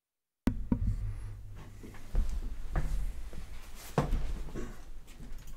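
Sound cuts in abruptly about half a second in: a low steady hum with a few light knocks and handling clicks, as of things being moved on a tabletop, the loudest knocks near the start and about four seconds in.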